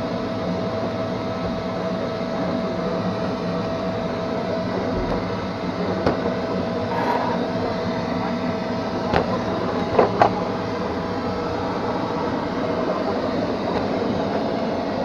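Neato XV-21 robot vacuum running: a steady motor hum with a rolling rumble, and a few sharp knocks about six, nine and ten seconds in.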